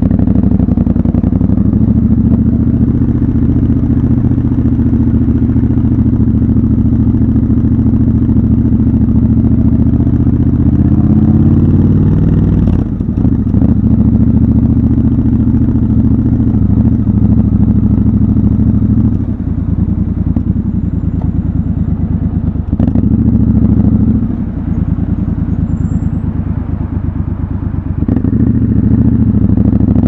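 Triumph Scrambler 1200 XC's 1200 cc parallel-twin engine running at low revs. The pitch rises about eleven seconds in as the bike pulls away. The engine note drops briefly a few times, goes quieter for a few seconds near the end, then rises again.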